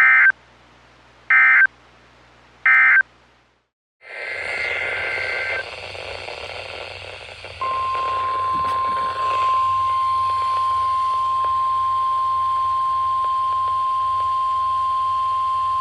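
Three short electronic data bursts of an Emergency Alert System end-of-message code, each about a third of a second long and about a second apart. After a brief dead silence, hissy weather-radio audio cuts in with a short squeal of data tones. About halfway through comes the steady single-pitch NOAA Weather Radio warning alarm tone.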